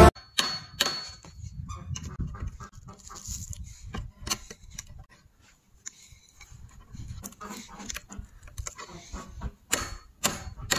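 Metal hand tool twisting a wire around a nail in a log: irregular light clicks, taps and scrapes of metal on metal and wood, with a near-silent pause about halfway.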